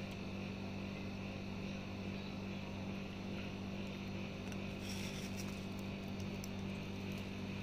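Steady low electrical hum, even and unchanging, with a few faint clicks after about five seconds.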